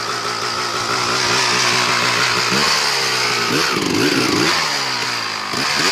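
Honda off-road motorcycle engine running under load on a steep rocky climb. It holds at high revs, then from about halfway it is revved up and down in several quick bursts.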